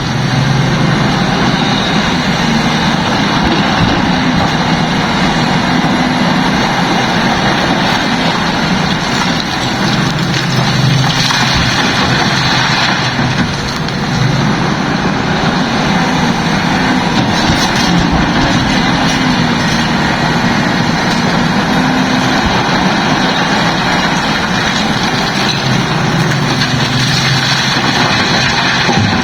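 Heavy diesel engine of construction machinery running steadily, its note swelling and easing with the load, with a brief drop about halfway through.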